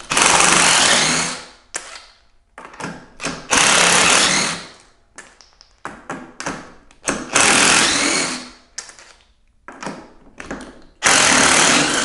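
Cordless impact driver with a long 9/16 socket backing out a mobility scooter's wheel bolts. It comes in four bursts of rapid hammering rattle, each about a second and a half long and trailing off, with short clicks and rattles between them.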